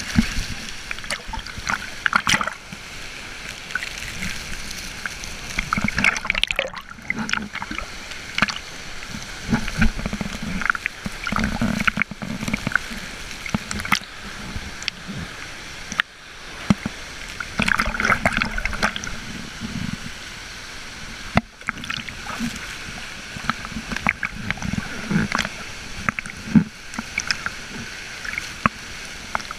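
Water splashing and sloshing close by, with irregular splashes and knocks over a steady rush of water.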